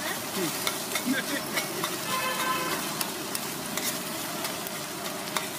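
A metal spatula scrapes and clacks repeatedly across a large flat griddle as it tosses and chops a bread-omelet egg mixture. Under it the mixture sizzles steadily in hot oil.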